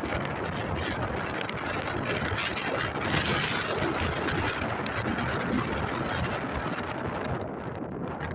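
Strong wind buffeting the microphone: a loud, gusting rushing noise that eases near the end.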